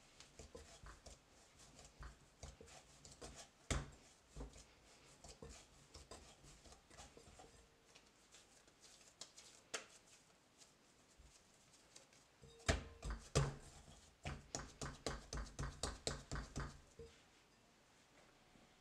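Hands kneading a soft yeast dough of flour, milk, water and oil in a glass bowl: faint squishing and scattered soft knocks, two louder knocks past the middle, then a quick run of soft slaps about four a second for a few seconds.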